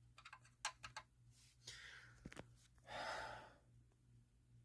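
Near silence over a faint steady hum. A few faint clicks come in the first second, as a key works the lock of a Simplex break-glass pull station, then a soft breathy sigh about three seconds in.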